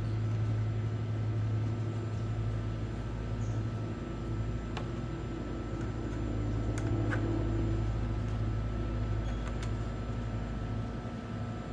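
Steady low machine hum with a few light clicks and taps of handling.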